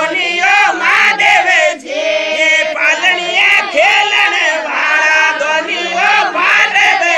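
A group of voices singing together, several at once, loud and continuous.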